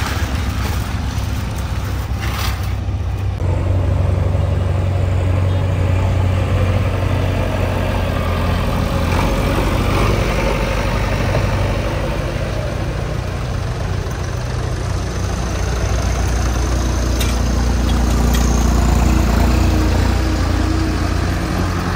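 Diesel tractor engine running steadily at idle, a little louder from about four seconds in.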